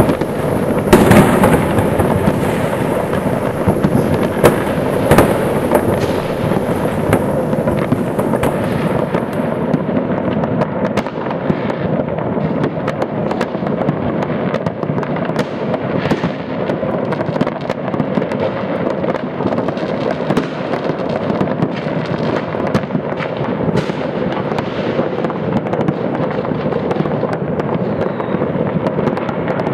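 New Year's Eve fireworks and firecrackers going off in many places at once, making a continuous crackle and rumble of overlapping bangs. A few louder bangs stand out in the first few seconds.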